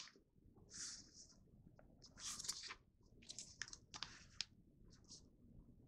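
Sheet of printer paper rustling and crinkling as it is turned, folded and creased by hand, in several short, faint bursts.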